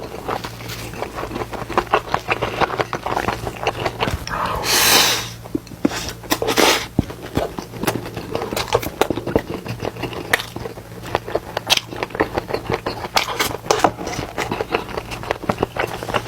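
Close-miked eating sounds: chewing on stir-fried squid, with many small wet clicks and smacks, and a longer hissing sound about five seconds in. A steady low hum runs underneath.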